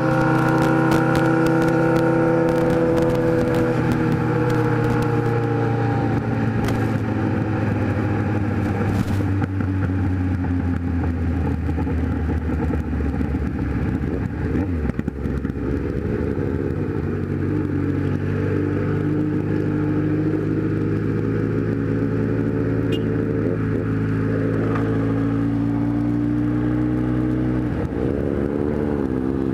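Kawasaki Z1000 inline-four motorcycle engine heard from the rider's position with wind rushing on the microphone: the engine note falls over the first few seconds as the bike slows, runs steady at low revs through the middle, and rises again near the end as it speeds up.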